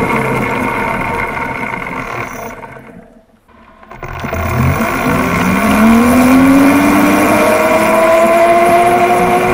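Electric go-kart's converted car-alternator motor and chain drive whining as it slows to a stop, going almost quiet for about a second. The whine then rises steadily in pitch as the kart accelerates away.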